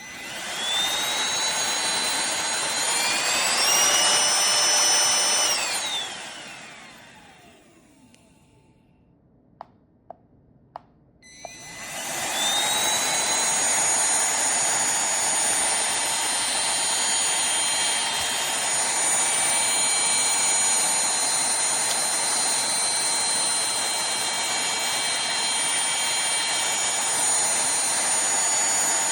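Cordless handheld vacuum's motor starting with a high whine, its pitch stepping up about three seconds in, then winding down to a stop. After a few clicks it starts again and runs steadily at a high whine.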